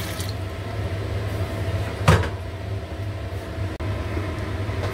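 Hot tap water pouring into a steel basin stops just after the start, leaving a steady low hum. A single sharp knock comes about two seconds in.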